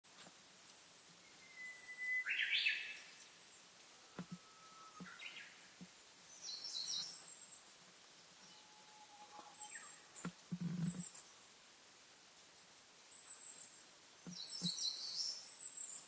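Wild birds calling and singing in woodland: a loud phrase about two seconds in, shorter phrases around seven and fifteen seconds, and thin high-pitched calls repeating throughout. A few soft low thumps come around four to six seconds in and again near eleven.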